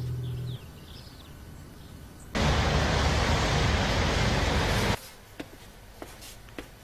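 Guitar music stops just after the start. About two seconds in, a steady wash of city street traffic noise cuts in, then cuts off suddenly about two and a half seconds later, leaving faint scattered light taps.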